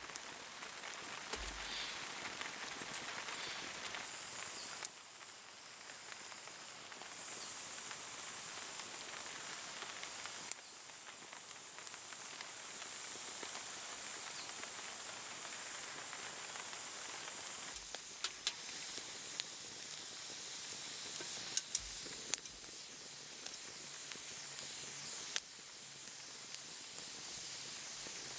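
Wood campfire burning in a Picogrill folding fire stand: a steady hiss with scattered sharp crackles and pops.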